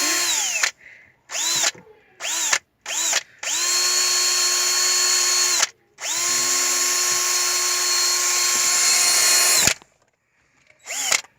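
Cordless electric screwdriver motor running in repeated trigger pulls: several short bursts and two long runs of a few seconds each, every pull spinning up to a steady whine and winding down when released.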